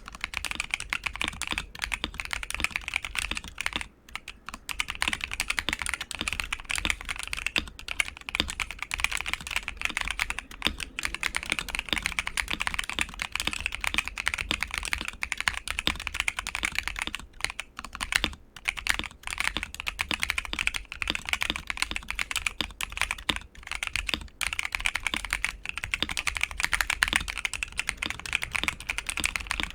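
ASUS ROG Azoth mechanical keyboard with ROG NX Red linear switches on a polycarbonate plate, dampened with layers of foam and PET film, being typed on fast and continuously. Typing breaks off briefly about four seconds in and again around eighteen seconds.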